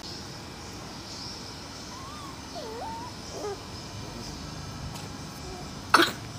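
Young puppies with a short wavering whine about two to three seconds in, over steady background noise. A single short sharp snap, the loudest sound, comes near the end.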